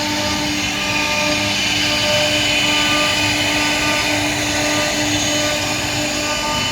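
CNC router spindle running steadily with a constant whine and the hiss of the bit cutting.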